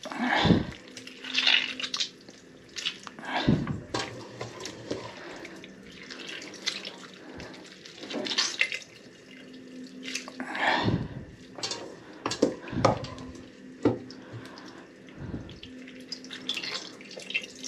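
Marinade dripping and splattering into a steel pot as handfuls of marinated pike are squeezed out by hand, in irregular bursts every second or two.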